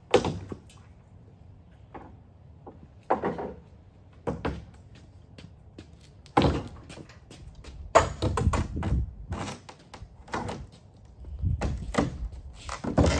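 Boat's metal rub rail being pulled and worked off the hull: a series of clanks, thunks and rattles in separate bouts, busiest about eight to nine and a half seconds in.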